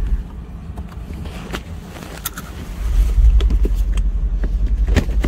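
Mercedes E550 convertible driving with the top and windows down: a steady low rumble of wind and road noise in the open cabin that grows louder about three seconds in, with a few light clicks.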